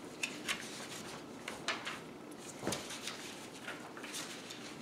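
Sheets of printer paper being handled and shuffled, giving a series of irregular short rustles and crinkles.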